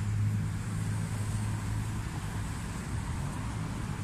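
Steady low engine hum with road traffic noise.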